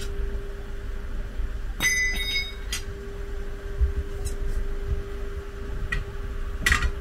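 Metal clinking from roadside truck-tyre work: one ringing metallic clink about two seconds in, then a few short sharp clicks, over a steady low hum and low rumble.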